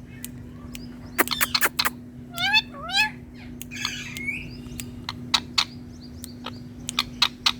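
Indian ringneck parakeet calling: short squawks, two rising whistled calls, and a harsh call, followed by a series of sharp clicks. A steady low hum runs underneath.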